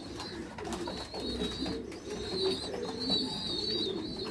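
Racing homer pigeons cooing in a loft, several birds at once in overlapping low coos, with a thin high wavering tone coming and going above them.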